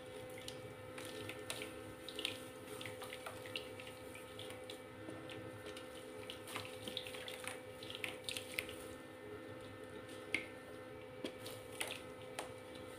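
Soft wet mud squeezed and crumbled by hand over a tub of muddy water: irregular small crunches, with drips and little splashes as pieces fall into the water. A faint steady hum lies underneath.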